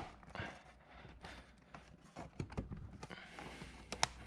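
Scattered clicks and light knocks of a plastic fog light cover being worked into a car's front bumper, with a sharp click right at the start and another near the end.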